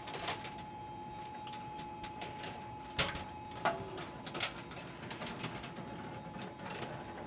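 Scattered metallic clicks and knocks of a space station hatch being handled and unlatched by hand, the loudest knock about three seconds in, over a steady hum.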